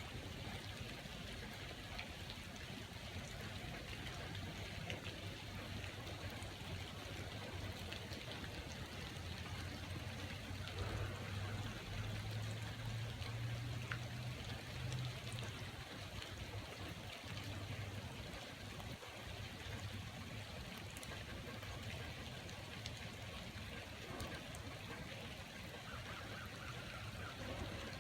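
Steady rain falling, with a low rumble underneath that swells for a few seconds in the middle.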